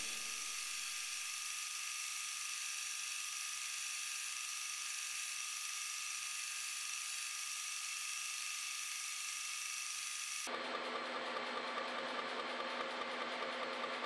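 Motor-driven drilling machine spindle running steadily while a small drill bit cuts into a metal plate, a whir with several steady tones. About ten seconds in the sound changes abruptly and faint ticks of cutting come through.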